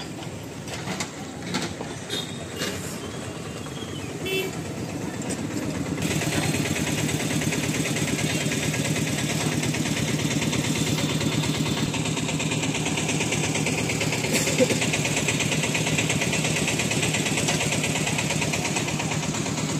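Light traffic ambience with a few short horn toots, then, from about six seconds in, the diesel engine of a JCB backhoe loader running steadily at close range.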